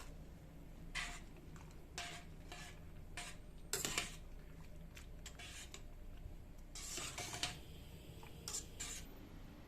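Kitchen utensils clinking and knocking against cookware and dishes: a dozen or so short, irregular knocks, over a low steady hum.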